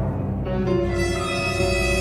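Soundtrack music with eerie held notes over a low drone.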